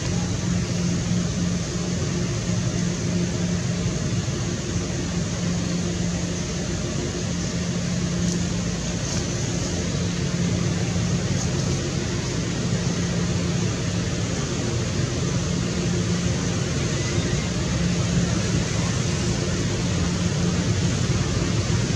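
Steady mechanical hum: a low drone holding one pitch over an even hiss, like a motor or engine running.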